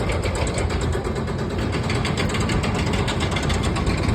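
Heavy site machinery running steadily: an engine-like drone with a fast, even pulsing, from the construction heating equipment.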